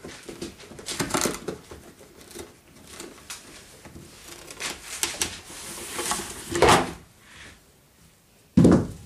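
A puppy gnawing and tugging at a cardboard box, with irregular clicks, scrapes and rustling of the cardboard, a louder scrape about six and a half seconds in, and a single heavy thump near the end.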